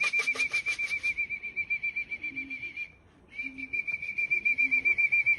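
A warbling whistle held at one steady high pitch for about three seconds, breaking off briefly, then held again: a pigeon fancier's call to bring racing pigeons down into the loft.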